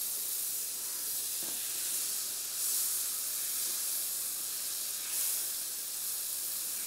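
Butter sizzling as it melts in a hot stainless steel frying pan, stirred with a wooden spoon: a steady hiss that swells briefly twice.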